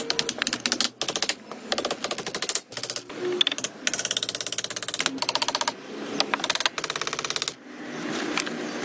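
Hammer blows driving nails into wooden poles, so fast and even that they run together into a rattling tapping of more than ten strikes a second. They come in several short runs with brief breaks between them and stop near the end, where a softer steady sound takes over.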